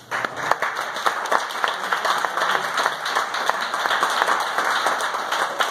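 A room of dinner guests applauding, the clapping breaking out right at the start and carrying on throughout.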